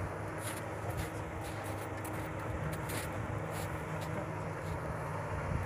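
A steady low engine drone under an even hiss, with no change in pace.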